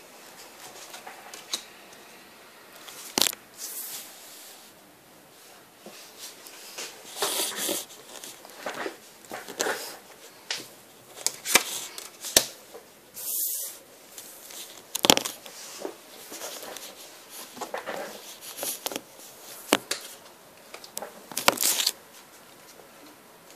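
Handling noise on a wooden table: irregular clicks and taps with short rustling and scraping in between, the loudest clicks about three, fifteen and twenty-one seconds in.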